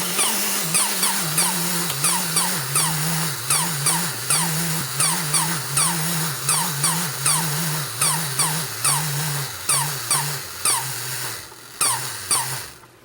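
Clockwork mechanism of a 1950s Modern Toy 'My Little Bear' wind-up toy running: a steady whir with regular clicks about three times a second. It slows and the clicks grow sparse near the end, then stop as the spring runs down.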